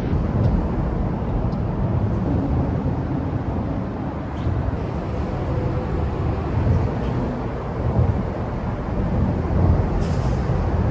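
Steady rumble of freeway traffic crossing the concrete Interstate 5 bridges overhead.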